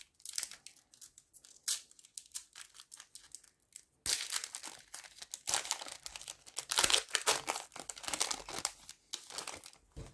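Plastic foil wrapper of a trading card pack crinkling and tearing as it is opened, loudest from about four seconds in; before that, scattered light clicks of cards and wrapper being handled.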